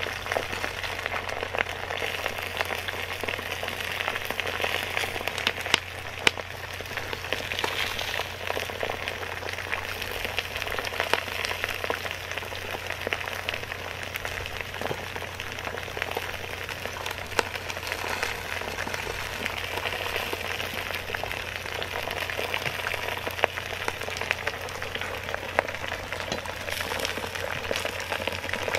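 Sliced onions frying in oil in a hot cast-iron cauldron over a wood fire: a steady sizzle with many small scattered crackles.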